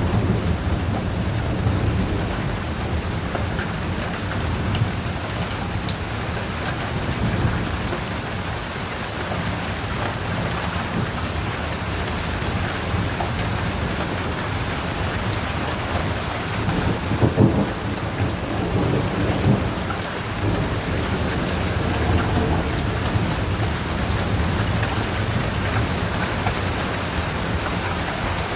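Heavy thunderstorm: rain falling steadily with a continuous low rumble of thunder beneath it. A few brief louder cracks come about two-thirds of the way through.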